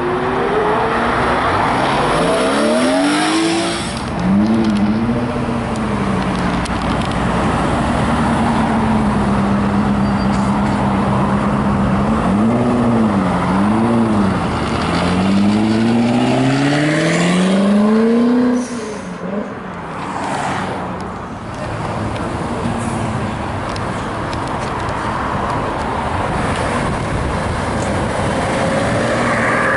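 Sports car engines revving as cars pull away one after another: a rise in revs early on, a steady stretch, two quick throttle blips, then a long climbing pull that breaks off about two-thirds of the way through, leaving lower engine and road noise.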